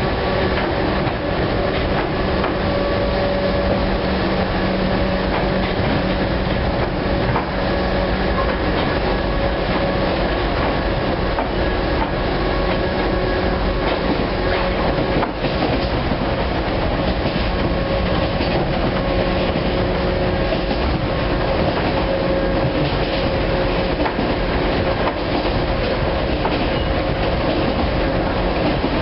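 Chichibu Railway 1000 series (ex-JNR 101 series) electric train running at speed, heard from inside the passenger car: steady rumble and clatter of wheels on rail with a continuous hum from the drive.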